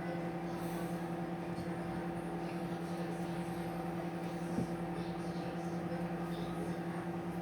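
Microwave oven running on its popcorn setting with a steady electrical hum, and one short click about four and a half seconds in.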